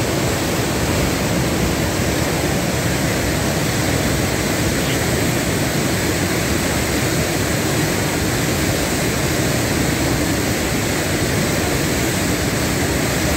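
Floodwater of a flash flood rushing in a swollen mountain stream, a steady, loud, unbroken rush of water.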